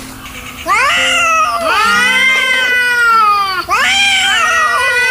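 Angry domestic cat yowling: two long, wavering wails, the first starting just under a second in and the second following without a break just after the middle.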